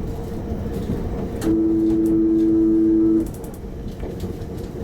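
Meitetsu 7000 series train's horn sounding one steady note for about a second and a half, a second and a half in, over the train's running noise.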